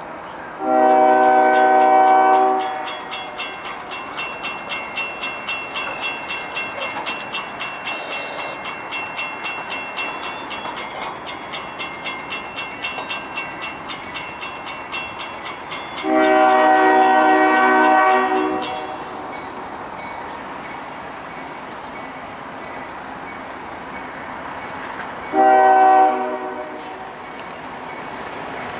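Diesel freight locomotive's multi-chime air horn sounding two long blasts and then a short one, the grade-crossing horn signal. Between the first two blasts an electronic grade-crossing warning bell rings at about two strokes a second, stopping shortly after the second blast.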